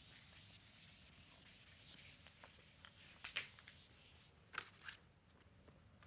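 A board eraser scrubbing across a chalkboard, a faint steady rubbing for about four seconds, then a few short taps.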